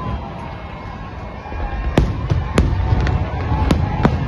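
New Year fireworks going off: a continuous low rumble of bursts, with four sharp bangs in the last two seconds or so.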